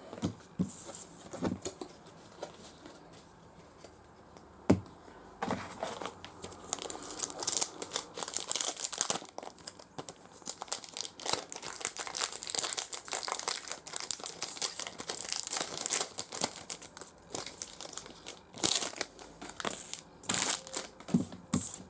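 Trading-card pack wrapper being torn open and crumpled. There are a few sharp clicks early on, and about five seconds in a dense crinkling begins that goes on, with short breaks, to the end.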